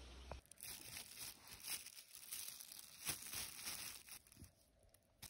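A thin plastic bag crinkling in irregular bursts as a hand rummages through pieces of dried watermelon peel inside it, dying away near the end.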